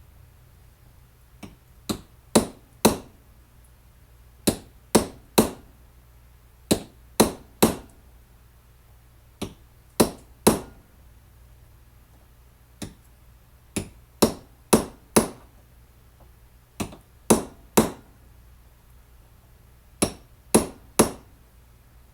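Hammer blows in short runs of three or four, about half a second apart, with pauses of a second or two between runs; each blow is sharp and rings briefly.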